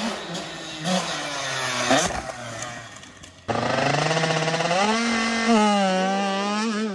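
Youth motocross dirt bike engines. First a bike's revs rise and fall. Then, after a sudden change about halfway, a closer bike revs up as it rides off, its pitch climbing and then held high.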